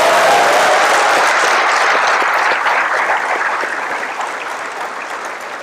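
Auditorium audience applauding, loudest at the start and slowly dying away.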